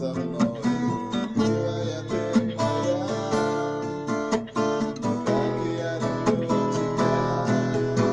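Acoustic guitar strummed and plucked in a steady rhythm, an instrumental passage between sung verses.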